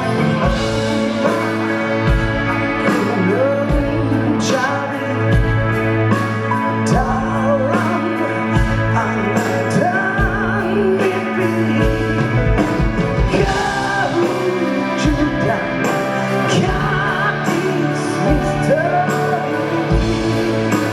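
A band playing a song with singing over a steady drum beat, part of a medley of Malay songs.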